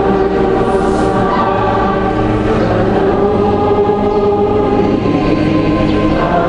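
Choir singing a slow sacred piece in long held chords, moving to a new chord near the end.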